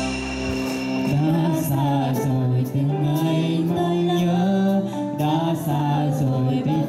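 Two young singers, a boy and a girl, singing a Vietnamese song into handheld microphones over a backing track with a steady beat. A new sung phrase begins about a second in.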